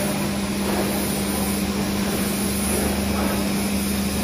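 Hydraulic CNC plate rolling machine running with no plate in its rolls: a steady electric-motor and hydraulic-pump hum with a constant low tone and an even mechanical hiss.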